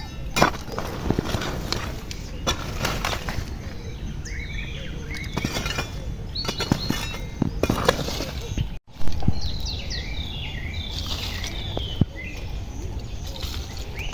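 Irregular knocks and scrapes of a tool digging through soil and lumps of charcoal, loudest just after nine seconds in. Birds chirp in quick clusters of short calls partway through and again near the end.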